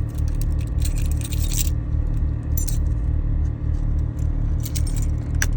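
Plastic shift-console trim on an Acura TL being worked loose by hand, making irregular clicks and light rattles, over a steady low rumble.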